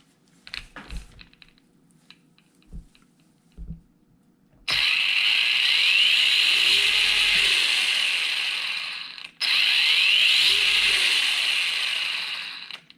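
Hosim Q903 1/16 brushless 4x4 RC truck's motor and metal-geared drivetrain spinning up under throttle: a loud whirring with a rising whine, in two bursts of a few seconds each with a short break between, sounding really smooth. A few light clicks come before the first burst.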